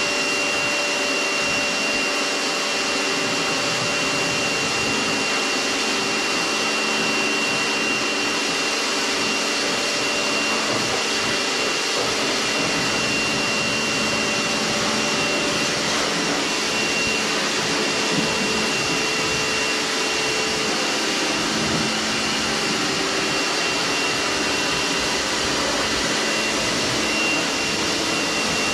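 Kärcher electric pressure washer running steadily, its motor and pump giving a constant hum with a steady high-pitched whine, while the water jet hisses against a motorcycle.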